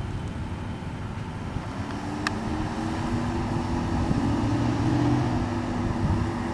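A pickup truck's engine running as it drives past, over a steady low road rumble, with a sharp click about two seconds in.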